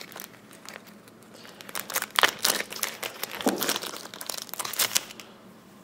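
Clear plastic bag crinkling as a silver round is pulled out of it by hand. An irregular run of sharp crackles that stops near the end.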